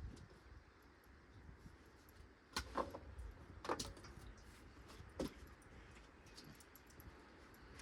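Four scattered sharp knocks with a short metallic ring: a hammer tapping nails into a wooden window header.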